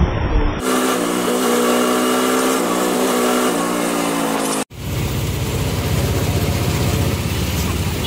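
Ride noise from inside a moving auto-rickshaw. A steady droning tone slowly sinks in pitch, then cuts off suddenly a little past halfway, and a low rumble of the moving vehicle follows.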